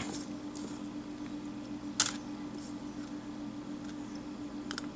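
Soldering work on a phone circuit board: a sharp click about two seconds in and a couple of faint ticks near the end, over a steady electrical hum.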